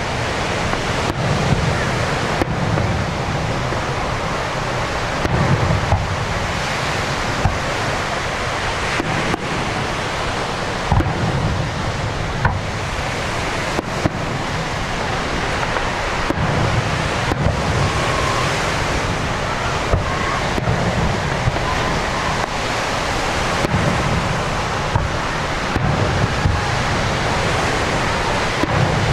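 Aerial fireworks display: irregular low booms and many sharp pops and crackles over a steady rushing noise of wind and surf.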